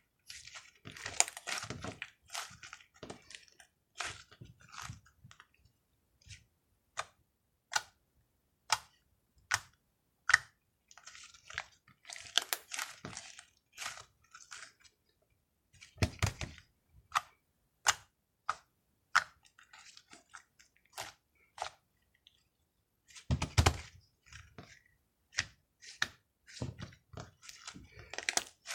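Whipped-cream slime being squeezed, poked and stretched by hand: irregular sticky clicks and air-bubble pops, with crackly runs and a couple of heavier, deeper squelches.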